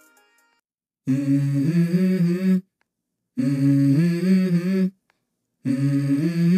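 Background music: the opening of a song, a voice humming a melody in three short phrases with no instruments, starting after about a second of silence.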